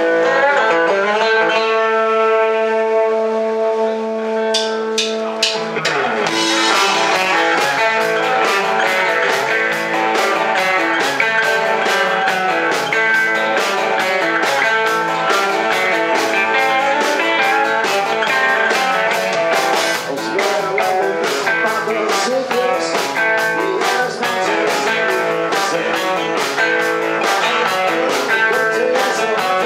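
Live rock band playing loudly on electric guitars and drum kit. A held chord rings on its own for the first few seconds, then the drums and guitars come in together about six seconds in with a steady driving beat.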